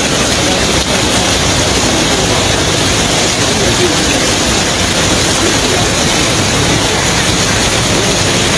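Fast-flowing floodwater and rain making a steady, loud rushing noise.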